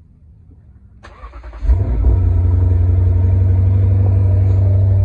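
Lexus RC's engine cold-started: about a second in, the starter cranks briefly, then the engine catches with a short rev flare and settles into a steady idle.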